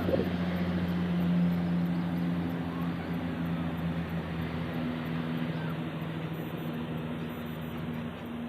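An engine running steadily: a low, even hum over a broad hiss, slowly fading toward the end.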